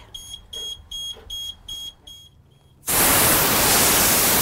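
A high warning beeper on the bus dashboard beeps about three times a second. About three seconds in, a loud, steady hiss of compressed air starts as the school bus's front air-brake tank is drained for the low air warning test.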